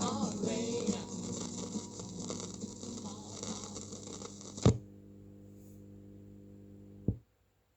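The end of a 1970s pop-rock recording fading out, then a sharp click and a steady low electrical hum for about two seconds, cut off by a second click into silence.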